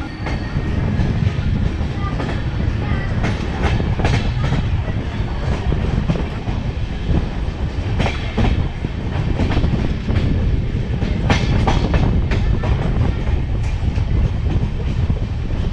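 Passenger train running along the track, heard from beside the moving coach: a steady rumble of wheels on rails, with groups of clacks a few times as the wheels cross rail joints.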